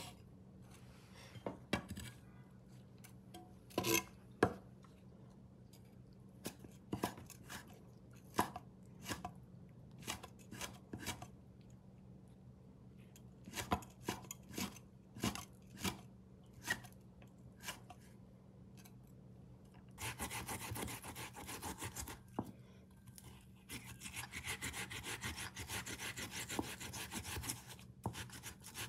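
Knife chopping scallions and red chilies on a wooden cutting board: separate sharp strikes, single and in short runs. From about twenty seconds in, ginger rubbed on a ceramic grater makes a steady rasping, with a short pause partway through.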